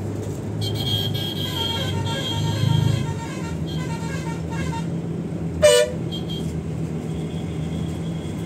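Steady engine and road hum of a moving Volvo bus, with one short horn blast about five and a half seconds in.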